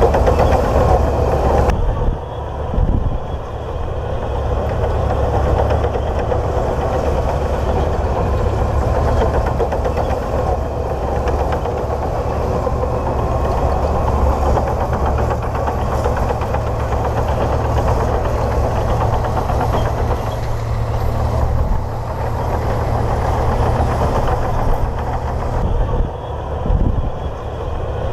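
Komatsu D58P bulldozer's diesel engine running steadily as the machine works, easing off briefly a few times.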